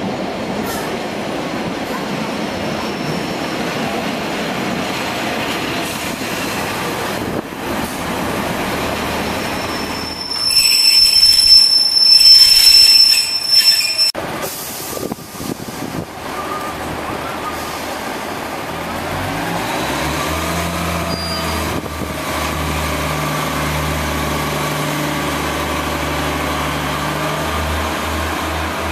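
Class 143 Pacer diesel railcar running in on the track, then its wheels squealing loudly for about four seconds as it slows. Later its diesel engine runs with a steady low note that rises in pitch as it revs up to pull away.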